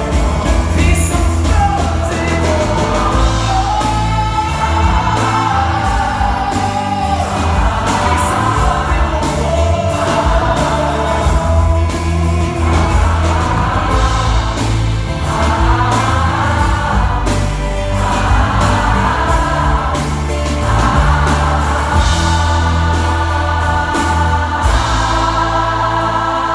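A large mass choir singing a pop song in long phrases, backed by a band with piano and drums. Near the end the choir holds a long chord.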